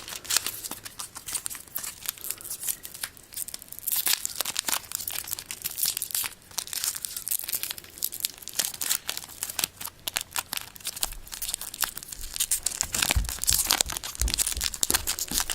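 Foil trading-card pack wrapper crinkling and tearing as it is worked open by hand, a stubborn pack that is hard to open. A couple of dull knocks come near the end.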